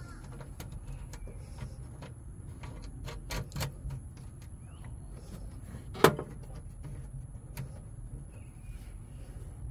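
Small metal clicks and taps from ring-terminal lugs, a lock washer and a nut being fitted by hand onto a battery bus bar stud, with one sharp, much louder click about six seconds in.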